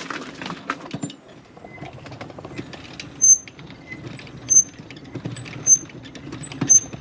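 Mobility scooter rolling down a dock ramp, its electric drive humming low over small rattling ticks, with a short, high, loud squeak about once a second from about three seconds in: the scooter's brake squeaking.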